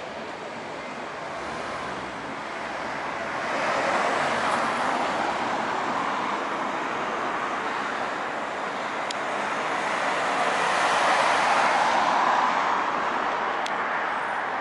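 City road traffic noise, vehicles passing. It swells about four seconds in and again near the end.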